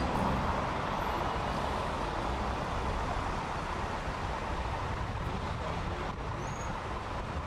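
Dense city road traffic: many cars and vans driving past close by, a steady wash of engine and tyre noise.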